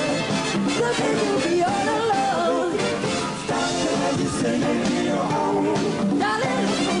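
Live pop-soul band music with lead and backing vocals, sung into microphones over electric guitar and band, with a brief dip in loudness about halfway through.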